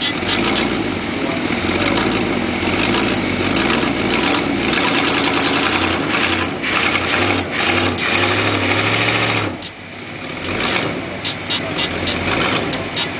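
Small-block Chevy V8 in a 1987 Mazda RX-7 revving. The revs climb until about nine and a half seconds in, then drop off sharply and build back up.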